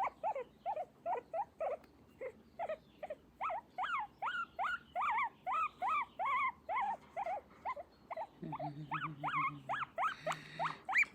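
A pet dog making a long run of short, squeaky whining calls that rise and fall, two or three a second, in pleasure as its back is massaged.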